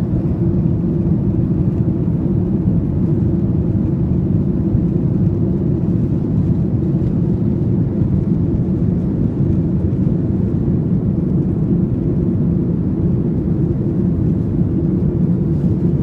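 Airplane engines during takeoff: a loud, steady low rumble that holds without rising or falling.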